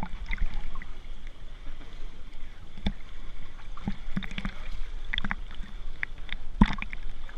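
Pool water lapping and sloshing against a camera held right at the water surface, with irregular small splashes and sharp knocks, the loudest about three seconds in and near the end.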